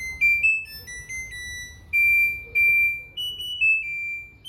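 LG front-load washing machine control board's piezo buzzer playing its short electronic melody, a string of high beeping notes stepping up and down, signalling that the program has finished.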